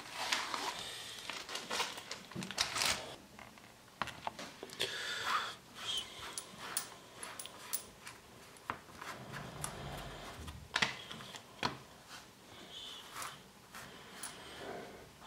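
A paper envelope being opened, with rustling and tearing in the first few seconds, then many light, sharp clicks and taps of metal coins being set down and knocking against one another.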